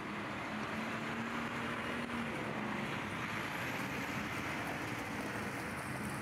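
Heavy sanitation truck with a snow plow blade driving past on a wet, slushy street: a steady engine hum under the hiss of tyres on wet pavement.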